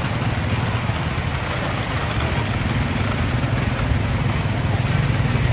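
Motorcycle engines running in street traffic: a steady low engine hum.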